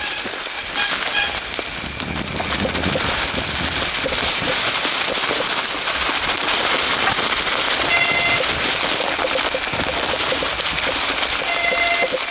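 Mountain bike rolling down a forest singletrack: tyres crunching and crackling over dry leaves, twigs and thin snow, a steady noise with brief squeaks about eight seconds in and near the end.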